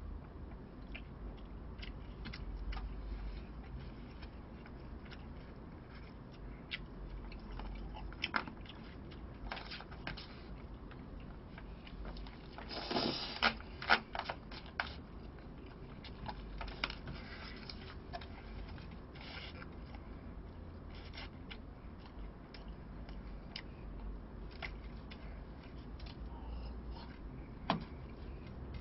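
Plastic spoon scraping and clicking against a plastic takeout food tray while eating, with chewing; a denser, louder run of scrapes about halfway through.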